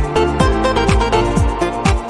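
Background music with a steady electronic dance beat, about two kick-drum thumps a second.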